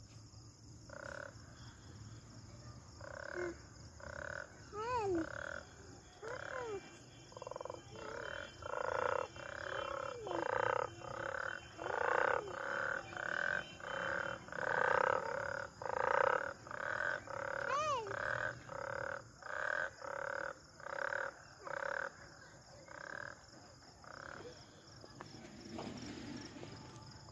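Frogs croaking in a steady series of short calls, about two a second, loudest in the middle and thinning out near the end, with a few short whistled glides among them.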